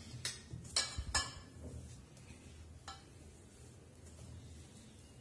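A few light clinks against a stainless steel mixing bowl, about four in the first three seconds, as a hand mixes syrup and oil into flour; after that only a faint low hum.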